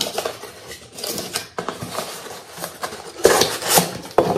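Handling of a small cardboard box and crinkled packing paper: irregular rustling and light clicks of card as the box is opened and a paper-wrapped mug is pulled out, with a louder burst of rustling about three seconds in.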